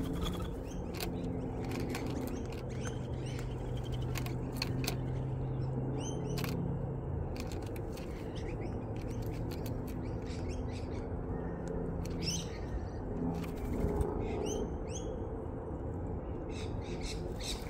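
Birds chirping in short, repeated calls, with many scattered sharp taps as corellas peck seed from the feeder trays. A steady low hum runs underneath.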